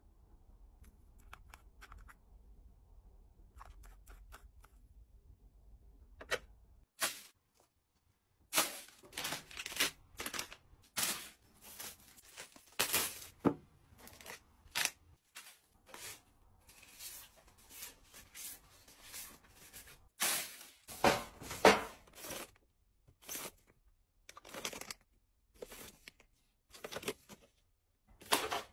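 Skincare and toiletry packaging being handled: plastic wrappers and foil sachets rustling, and items tapping as they are set onto shelves and into storage bins. Quiet for the first several seconds apart from a few faint taps, then a busy run of rustles and knocks.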